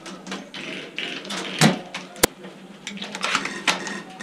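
An irregular run of sharp clicks and knocks, the loudest two about one and a half and two seconds in.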